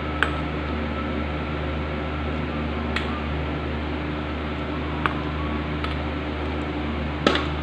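Steady fan-like hum and hiss with four short, sharp clicks scattered through it, the last the loudest, from hot water being mixed into cornstarch in a stainless steel tray.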